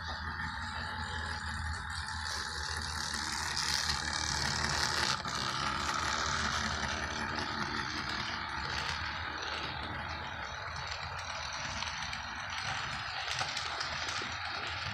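HO scale model freight train running on its track: a steady electric motor hum with the small rattle and clatter of wheels and cars, a little louder about four to six seconds in.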